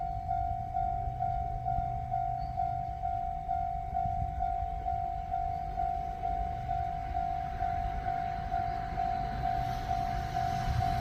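Japanese level-crossing warning bell ringing, an electronic ding repeating about two times a second, which signals that a train is approaching. Under it is a low rumble that grows louder near the end.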